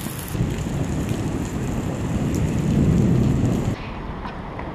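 Thunder rumbling over steady rain, building to its loudest about three seconds in, then cutting off suddenly near the end.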